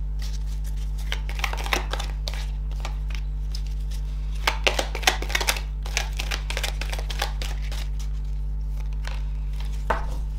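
Heart-shaped oracle cards being handled, fanned through and laid down on a cloth-covered table: quick papery flicks and snaps, densest about halfway through, over a steady low hum.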